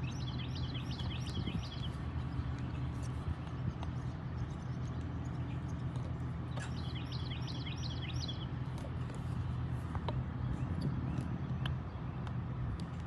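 A songbird sings two short phrases of about five quick, high notes each, the first right at the start and the second about seven seconds in. Under it runs a steady low engine hum.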